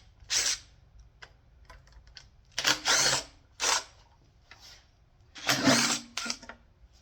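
Impact wrench on a long extension, run in four short bursts of under a second each with pauses between, spinning out the oil pan bolts.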